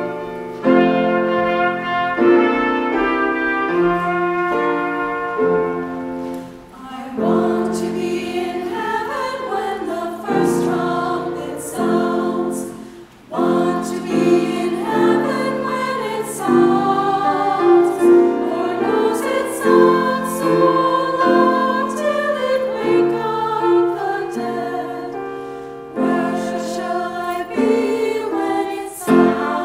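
Women's choir singing a choral arrangement in parts, its phrases broken twice by brief pauses.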